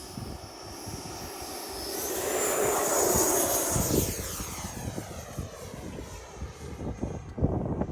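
Electric ducted-fan whine from an FMS Avanti S 90mm RC jet as it flies past. The high whine swells to its loudest about three seconds in, then fades away with a sweeping, phasing tone. Gusty wind buffets the microphone, most strongly near the end.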